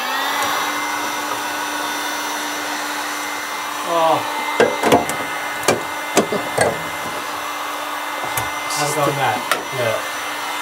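Corded 230-volt two-speed Einhell heat gun switched on, its fan spinning up and then running steadily with a constant motor hum and high whine.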